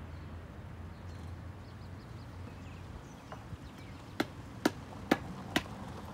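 Four sharp, evenly spaced knocks a little under half a second apart, about four seconds in, over a faint low steady hum.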